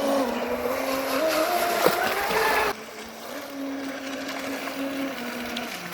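Traxxas RC boat's motor running on the water with a steady whine that climbs in pitch, then drops suddenly in loudness a little under three seconds in and carries on as a quieter, steadier tone, over water rushing at the hull.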